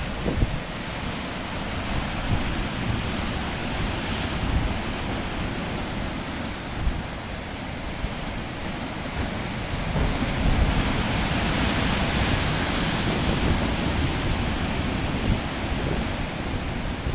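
Atlantic surf breaking against a rocky cliff base: a steady wash of white water, swelling louder about ten seconds in as a big wave crashes into the rocks. Wind rumbles on the microphone underneath.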